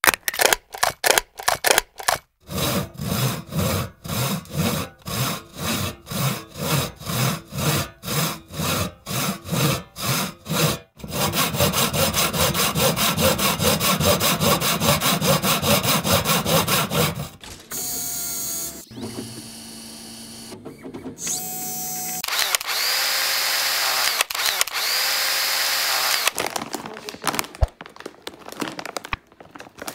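Electronic intro music and sound effects: a pulsing beat of about two hits a second, then a dense buzzing drone for several seconds, then a run of separate electronic tones and sweeps that fades near the end.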